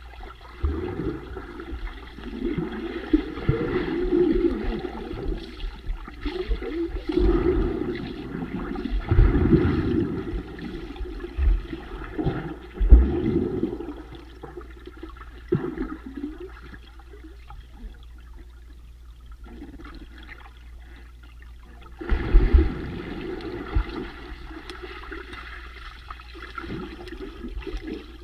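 Muffled water churning and bubbling heard underwater as a swimmer with an inflatable ring moves and splashes, with low thumps. The churning comes in surges, dies down for several seconds past the middle, then picks up suddenly again.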